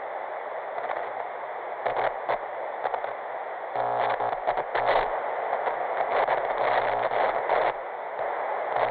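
Television static sound effect for a lost signal: a steady hiss of white noise broken by short glitchy crackles, with a low electrical buzz that cuts in and out.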